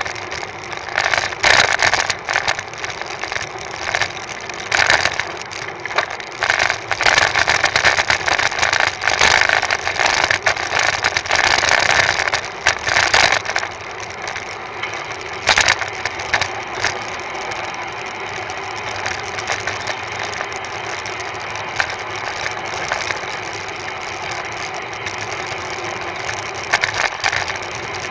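Wind and road noise on the camera microphone of a road bike riding at speed: a rushing hiss with rattling knocks and gusts through the first half, then a steadier rush.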